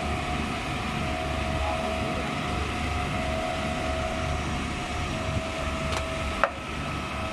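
Truck-mounted concrete boom pump running steadily: a low engine rumble with a steady whine on top. A single sharp knock sounds near the end.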